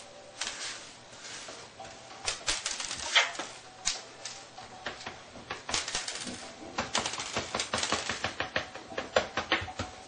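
Casing of a Sony Vaio A-series laptop clicking, knocking and rattling in quick irregular taps as it is handled and turned over on a hard surface.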